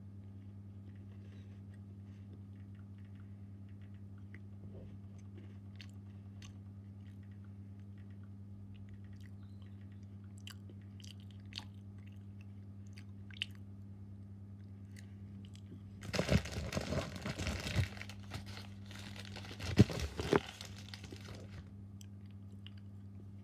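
A steady low electrical hum with faint scattered clicks, then two loud stretches of crunching, crackling noise, each about two seconds long, the second with the sharpest cracks.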